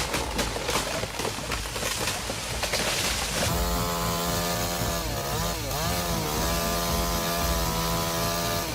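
Chainsaw cutting wood. For the first few seconds there is a rough crackling noise; then, about three and a half seconds in, the saw's engine note comes through steady and high, dipping briefly in pitch twice as it bogs in the cut and picks up again.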